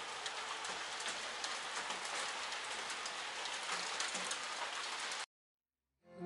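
Steady rain with scattered ticks of individual drops. It cuts off suddenly a little after five seconds in.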